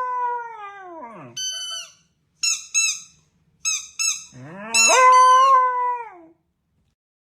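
A dog howling: a long howl that slides down and dies away about a second in, a few short high yips, then a second long howl that rises, holds its note and falls away near the end.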